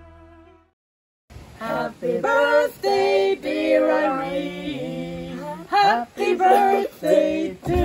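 Soft instrumental music ends less than a second in; after a brief silence, a few people sing together in a group, a woman's voice the most prominent.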